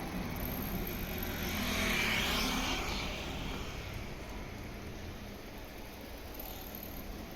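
A car passing by, its tyre and engine noise swelling to a peak about two seconds in and fading away, over steady street noise.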